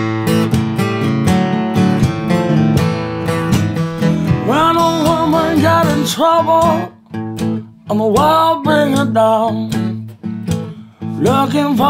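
Acoustic guitar playing slow country blues, joined about four seconds in by a man's wordless singing in short moaning phrases over the guitar.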